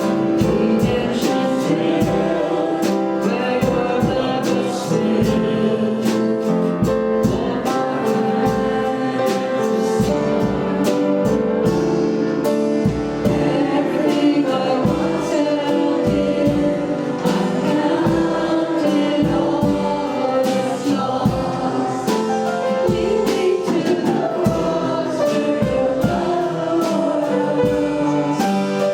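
Church worship music: a group of voices singing a gospel-style worship song over instrumental accompaniment with a steady beat.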